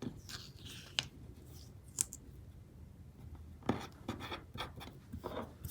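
Paper and sticker handling at a desk: light rustling and scraping with a few sharp taps and clicks scattered through, as stickers are adjusted on a planner page.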